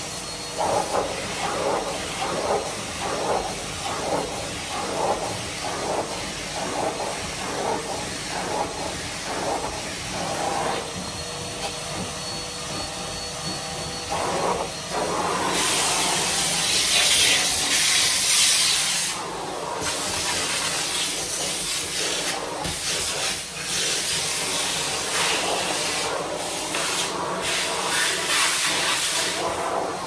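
Henry canister vacuum cleaner running with its crevice tool. In the first ten seconds or so the tool strokes back and forth at about two strokes a second. From about halfway through, a louder hissing rush of air lasts several seconds, then comes and goes.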